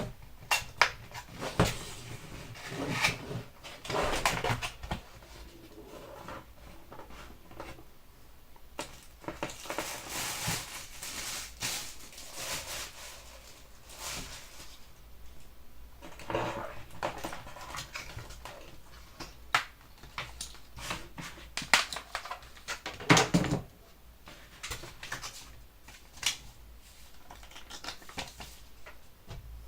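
Keyboard box and its packaging being handled and opened: irregular rustling, scraping and knocks of cardboard and plastic, with a longer stretch of rustling about ten seconds in and a sharp knock a little past twenty seconds.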